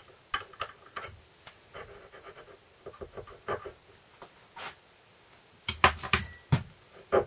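Small metal clicks and taps of 2BA spanners on the clamp bolt of a loose oil thrower on a Land Rover transfer box output housing, as the part is worked free, with a louder cluster of metal clinks and a brief ring about six seconds in.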